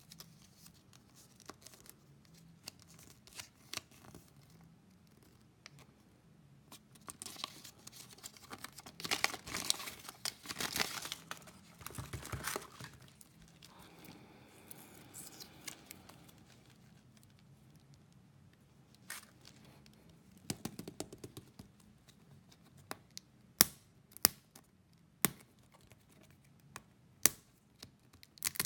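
Foil and plastic candy wrappers crinkling and tearing as they are unwrapped by hand, loudest and densest a third of the way in. Toward the end there is a run of sharp clicks and snaps as the wrapped candy and toys are handled.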